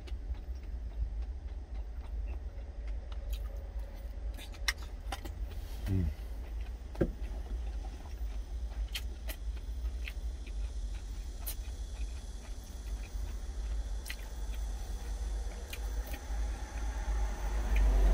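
Steady low rumble of a truck's idling engine heard from inside the cab, with scattered light clicks of wooden chopsticks against a stainless steel food container and quiet chewing.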